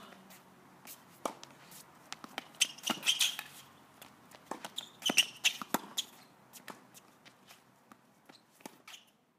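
Tennis rally on an outdoor hard court: sharp irregular pops of racket strings hitting the ball and the ball bouncing, with the players' footsteps on the court surface in between. The sound stops abruptly near the end.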